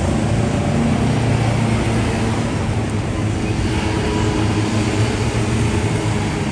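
City street traffic, with a vehicle engine running close by as a steady low hum over the general street noise.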